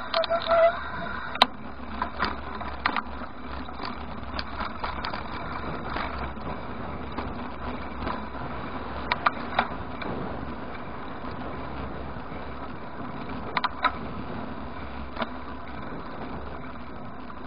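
Bicycle riding along a street, heard through a camera clamped to its handlebar: steady road and wind noise, with irregular sharp clicks and knocks as the bike and mount jolt over bumps.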